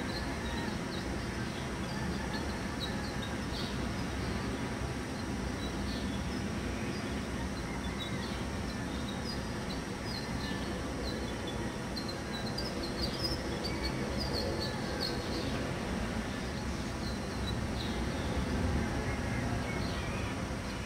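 Outdoor ambience: a steady low rumble with small birds chirping over it in short high calls, busiest around the middle.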